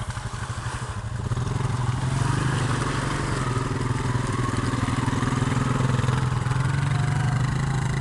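ATV engine running hard under load as the four-wheeler pulls through deep mud. It gets louder about a second in and then holds steady.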